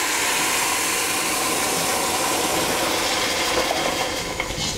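Red wine hitting a hot stainless steel pot of frying onions and carrots, sizzling with a loud, steady hiss as it deglazes the pan. The hiss eases slightly near the end.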